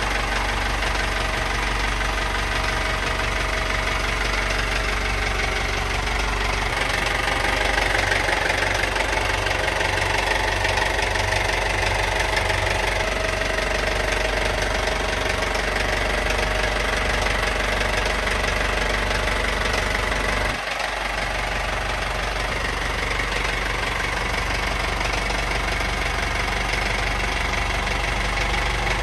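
Yanmar marine diesel inboard engine idling steadily, heard up close in the engine compartment.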